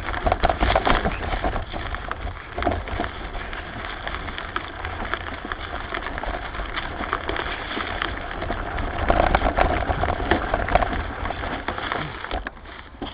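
Dense, continuous crackling and rustling of dry fallen leaves and brush being pushed through on a forest slope, over a low rumble on the microphone.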